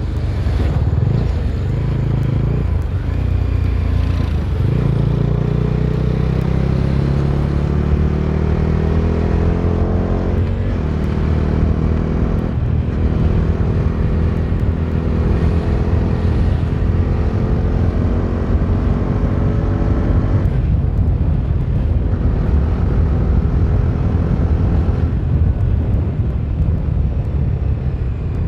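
Bajaj Dominar 250's single-cylinder engine under way, revs climbing for several seconds then dipping briefly about ten and twelve seconds in, as on gear changes. It then holds a fairly steady pitch, with further short dips later, over a constant low rumble of the ride.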